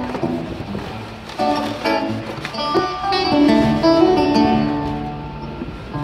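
Amplified plucked stringed instrument, guitar or banjo, picked through the stage PA at a sound check: a run of single notes, some left to ring, heard across an open amphitheatre.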